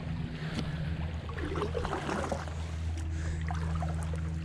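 Kayak paddling: water splashing and dripping off the paddle blade, with small clicks and knocks of the paddle, over a steady low hum.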